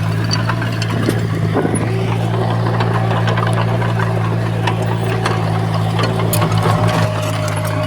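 Heavy construction machine's diesel engine running steadily, with scattered metallic clicks and clanks over it.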